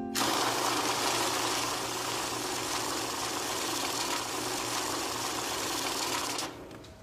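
Steady rushing noise with a low hum underneath, which stops abruptly about six and a half seconds in, leaving faint clicks.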